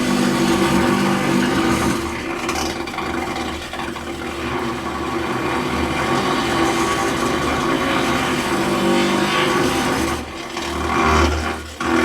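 Electric impact drill running continuously with a steady motor hum over harsh rattling noise. It eases off briefly about two seconds in and again about ten seconds in, then stops for a moment just before the end and starts again.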